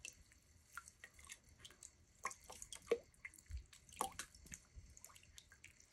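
Faint, irregular wet clicks and drips of water and clay slip as hands work a wet clay mug on a spinning pottery wheel.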